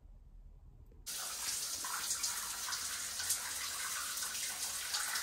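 Overhead rain shower head running, a steady spray of water falling in a tiled shower. It starts suddenly about a second in, after faint room tone.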